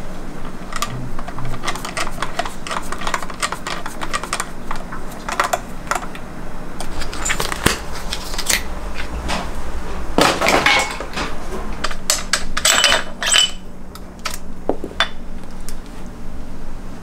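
Irregular light metallic clinks and clicks, some in quick clusters, over a faint steady low hum.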